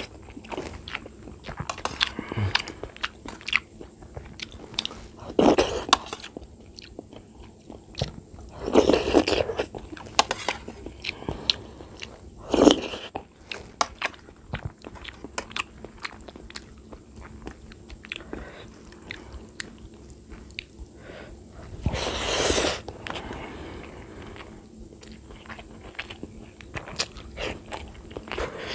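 Close-miked chewing and biting of a person eating rice and curry, with many small clicks and a few louder bursts now and then.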